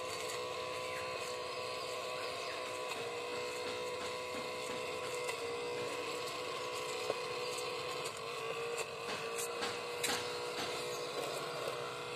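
Small DC motor of a homemade plastic-bottle vacuum cleaner running with a steady whine, its pitch shifting slightly now and then. Scattered light clicks in the second half as grains are sucked up the hose.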